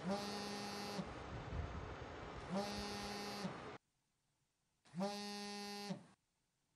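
Electric buzzer sounding in three steady, evenly spaced buzzes, each about a second long and starting with a slight upward bend in pitch.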